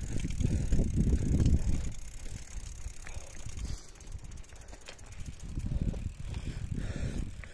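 Mountain bike rolling over a loose, stony dirt trail: tyres crunching on gravel and the bike rattling, loudest in the first two seconds. About halfway through comes a rapid ticking of the rear hub freewheeling.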